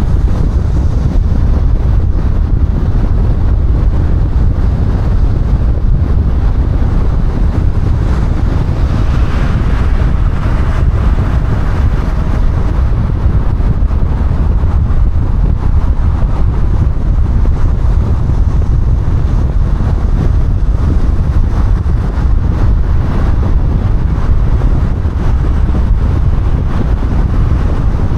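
Car driving at highway speed: a steady, heavy low rumble of road and wind noise, with a brief brighter swell about nine seconds in.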